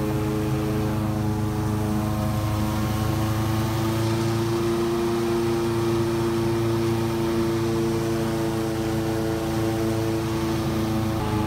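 Airboat's engine and big air propeller running at speed: a loud, steady, droning hum whose pitch rises slightly near the end.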